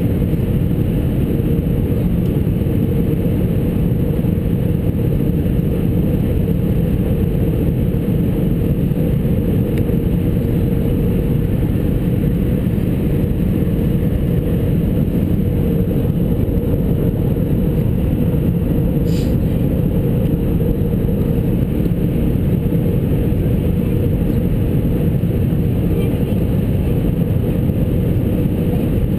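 Steady cabin noise of a jet airliner on approach: the low, even rumble of the engines and rushing air heard from inside the passenger cabin, with a faint steady hum.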